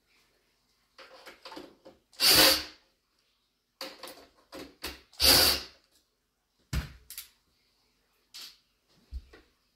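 Computer parts being handled during disassembly of a desktop PC: scattered knocks and clicks, with two louder scraping, rustling sounds about two and five seconds in.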